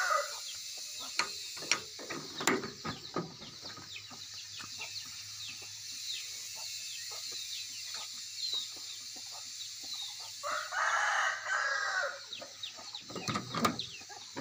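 A rooster crows once, about ten seconds in, one long call over many short, high chirps. A few sharp knocks and rustles come near the start and again near the end.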